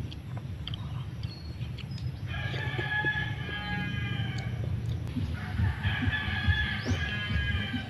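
Rooster crowing twice, two long crows of about two and a half seconds each, the first starting about two seconds in and the second about five seconds in, over a steady low rumble.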